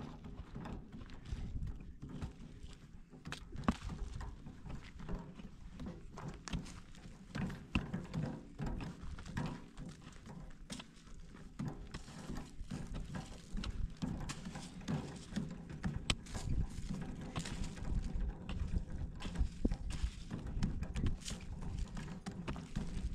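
Mattock digging into dry, stony soil: irregular thuds and scrapes as the blade strikes and drags through earth and gravel.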